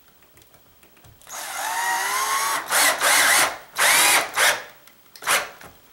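Cordless drill driving a square-drive drywall screw through a grab bar's mounting flange into the wall: from about a second in, a motor whine that rises and falls in pitch for a second and a half, then three short bursts of the drill.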